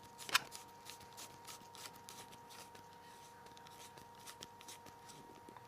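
Faint, irregular small clicks and scrapes of a T5 Torx screwdriver doing up a tiny screw in a Nokia N8's bottom cover, with one louder click just after the start. A faint steady hum runs underneath.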